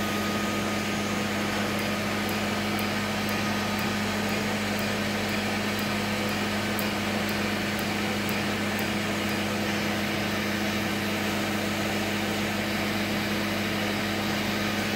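Q-switched Nd:YAG tattoo-removal laser unit humming steadily, with faint sharp ticks of the laser firing about twice a second. The ticks start about two seconds in and stop about nine seconds in, as the handpiece is lifted off the skin.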